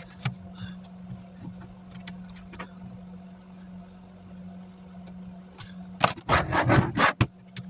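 Laptop screen parts being handled and worked loose by hand: scattered light clicks, then a loud burst of crackling and clattering about six seconds in lasting just over a second, over a steady low hum.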